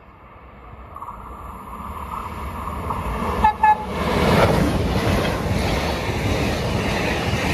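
A Trenitalia regional push-pull train approaching and passing at speed through a station, its noise growing steadily louder. About three and a half seconds in the train horn gives two short toots close together, then the passing carriages make a loud, steady rush of wheels on rails.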